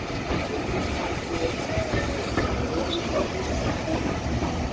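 Heritage railway train running on the line: a steady low rumble of wheels on the track with faint scattered clicks.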